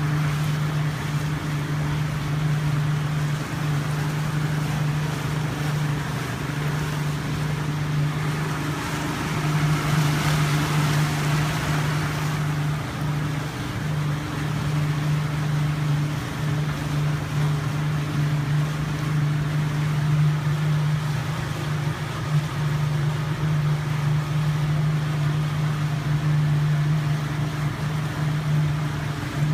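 Yamaha 200 hp V6 outboard motor running steadily with the boat under way: a constant low drone over the rush of water and wind. The rush swells for a couple of seconds about ten seconds in.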